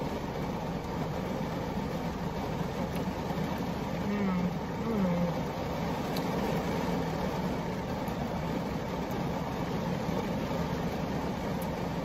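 Heavy rain falling steadily on a car's roof and windshield, heard from inside the car as an even hiss.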